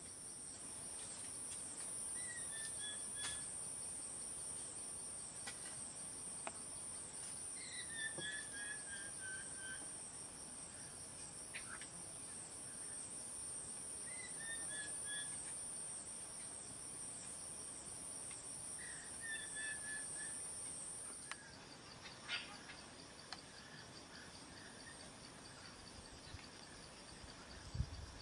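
Forest ambience: a high, pulsing insect drone, most likely cicadas, that drops away about two-thirds of the way through. Over it a bird repeats a short falling series of notes about five times, with a few sharp clicks and a low thump near the end.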